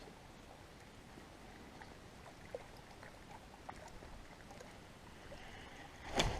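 Faint water and canoe sounds with a few small scattered clicks, then a sudden louder knock or splash near the end.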